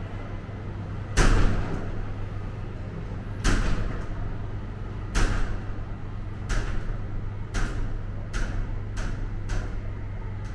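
A series of eight sharp knocks, each with a short ringing tail, coming closer and closer together: more than two seconds apart at first, about half a second apart near the end. A steady low hum runs underneath.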